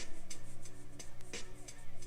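Background music with sustained low tones and scattered percussive hits.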